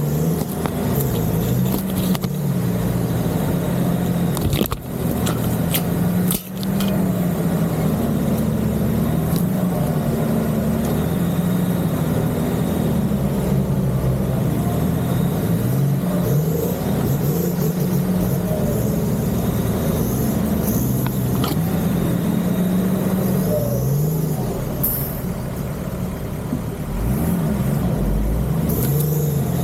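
Off-road 4x4 engine running under changing throttle, its note rising and falling as it crawls. Sharp knocks come about five and six and a half seconds in.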